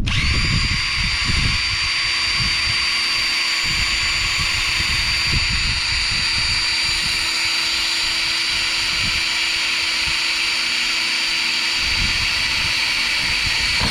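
Electric drill running at a steady speed, boring a hole through aluminum angle. It starts suddenly at full speed, holds one even high whine throughout and stops near the end.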